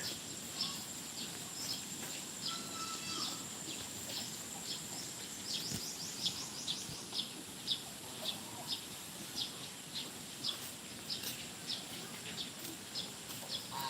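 A bird chirping over and over, short high chirps about two a second, over a faint steady high hiss.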